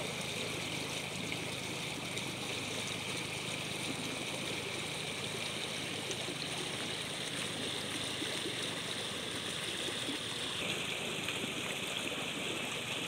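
Stream water rushing steadily through the narrow gap between two fishing-net wings set across a muddy creek, churning into whitewater.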